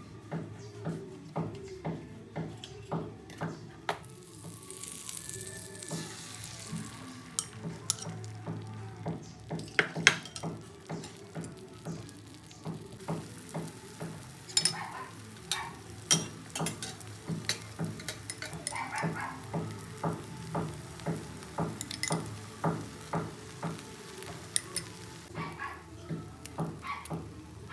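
Butter and beaten eggs sizzling in a nonstick frying pan, with a rise in sizzling about four seconds in and the sharp clicks and scrapes of a utensil against the pan, loudest about ten seconds in. Background music with a steady beat of about two pulses a second plays throughout.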